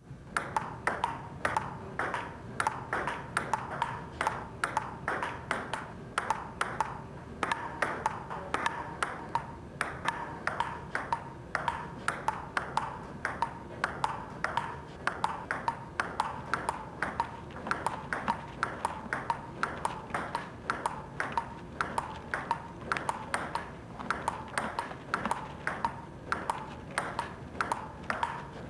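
Table-tennis ball clicking back and forth in a fast, unbroken rally, hitting paddles and table a few times a second.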